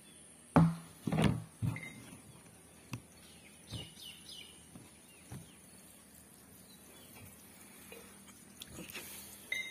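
Several knocks and bumps from the plastic water tank and its PVC pipe being handled, the loudest three in the first two seconds, followed by lighter clicks. A bird chirps a few times near the middle.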